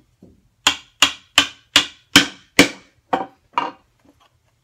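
Hammer striking a mortise chisel to chop a mortise in a wooden door stile: a light tap, then eight sharp blows at about two to three a second, stopping near the end.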